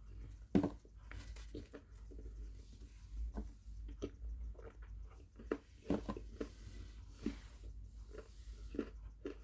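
A person chewing and biting a chocolate bar close to the microphone: irregular short mouth clicks and crunches, one or two a second.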